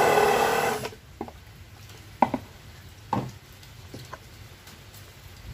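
A small power tool's motor runs briefly and stops about a second in, followed by several light clicks and knocks of parts being handled and fitted.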